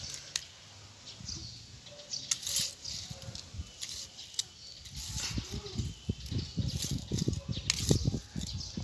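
A small metal hand blade digging and scraping into dry, stony soil to make a planting hole, with gritty scrapes and sharp little clicks as it strikes pebbles. From about five seconds in the digging gets heavier, with denser scraping and dull thumps.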